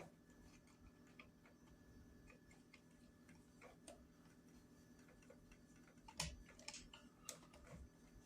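Faint clicks and ticks of a hand screwdriver working a screw out of a Kirby vacuum's plastic housing, with a louder cluster of clicks and taps about six seconds in.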